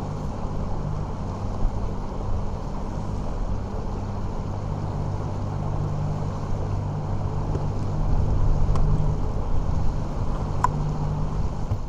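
Outboard motor running steadily on a small bass boat under way, with a constant rush of wind and water over it.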